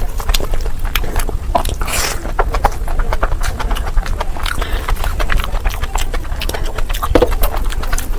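Close-miked eating: chewing and biting with many sharp mouth clicks over a low rumble.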